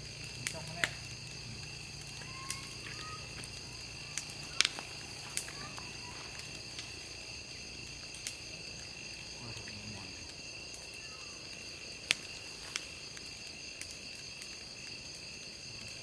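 Wood campfire crackling, with sharp pops scattered through, the loudest about four and a half seconds and twelve seconds in, over a steady high chorus of night insects such as crickets.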